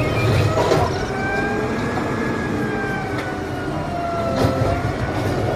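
Automated side-loader garbage truck lifting a wheeled bin with its hydraulic arm: several whining tones that slowly rise and fall over the running engine, with a few knocks from the bin and arm.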